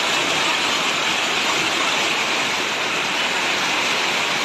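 Floodwater rushing: a steady, even rush of moving water.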